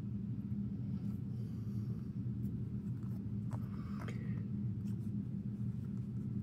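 A steady low hum runs throughout. A few faint, light clicks come from a metal tool pressing on the stem-release nib of a quartz watch movement.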